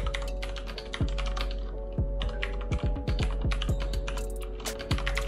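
Typing on an Asus ROG Falchion 65% mechanical keyboard with linear Cherry MX Red switches: a fast, irregular run of keystroke clacks. Background music with a steady beat plays underneath.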